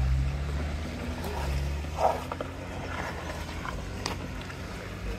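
Jeep Wrangler engine running at low revs as the Jeep crawls down a rocky trail, a steady low rumble. A few short sharp knocks come through, the loudest about two seconds in and another near four seconds.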